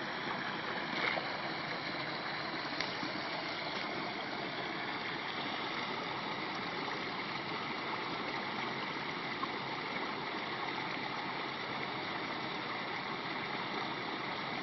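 Muddy stormwater runoff from heavy rain gushing out of a culvert pipe and down an eroded ditch: a steady rushing of water.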